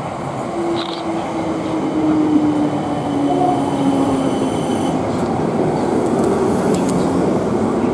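South Western Railway Class 455 electric multiple unit running into the platform, a steady rumble of wheels on rail growing louder. A falling whine as it slows, and a brief high squeal about three seconds in.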